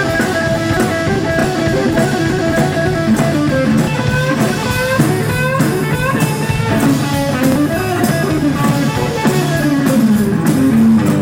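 Live rock and roll band playing an electric guitar solo over drum kit and bass. The guitar plays quick runs with bent notes that slide up in pitch.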